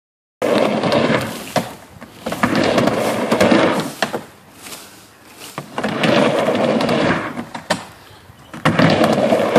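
Skateboard wheels rolling on a wooden plywood half-pipe: a rolling rumble that swells and fades four times as the rider goes back and forth, with sharp clacks from the board where each run ends.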